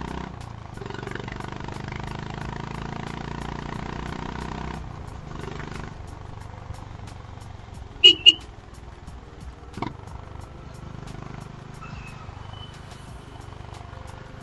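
Honda H'ness CB350 single-cylinder engine and exhaust running on the road, louder for the first five seconds and easing off after about six. Two short, high beeps come a little past halfway, followed by a click.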